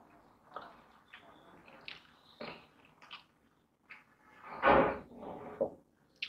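Eating by hand from a steel plate: fingers mixing and scooping biryani rice, then mouth and chewing noises, with a louder short noise about four and a half seconds in.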